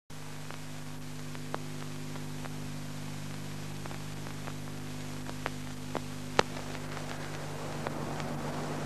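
Steady electrical hum and hiss with scattered crackles and pops from an old film soundtrack transfer, one pop about six and a half seconds in clearly louder than the rest. The hiss thickens slightly near the end.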